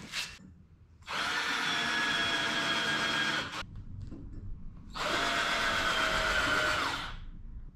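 Cheap cordless drill boring pilot holes into a 2x4: two runs of about two and a half and two seconds, the motor's whine sagging in pitch at the end of the second run as its battery goes flat.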